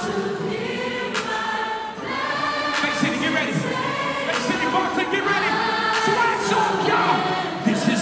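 Live gospel music: a choir singing with musical accompaniment, heard in a large concert arena.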